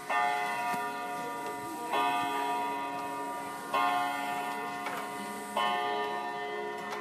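Antique clock striking, four times about two seconds apart. Each strike is the same chord of ringing tones that dies away slowly before the next.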